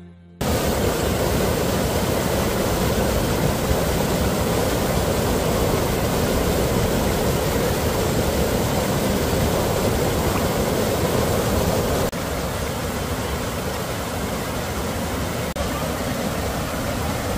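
Loud, steady rush of fast-flowing water that starts abruptly and holds even, stepping down a little in level about twelve seconds in.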